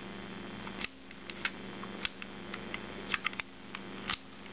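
Irregular small metal clicks and taps, about a dozen, as the parts of a Ruger Standard (Mark I) pistol are handled while the barrel assembly is worked to get it out. A steady low hum runs underneath.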